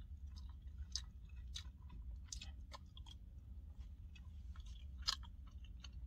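A person chewing a mouthful of grilled steak and rice, with scattered small wet mouth clicks and smacks, the sharpest about a second in and near the end, over a steady low hum.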